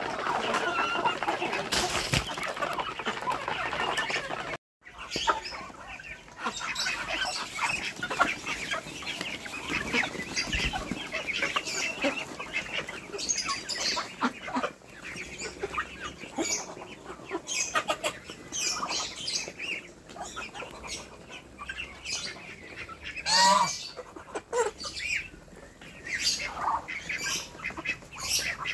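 A flock of free-range chickens and Muscovy ducks feeding together from a pan: a busy patter of pecking clicks and scrabbling, clucking and bursts of wing flapping. About two-thirds of the way through, one bird gives a single loud wavering call.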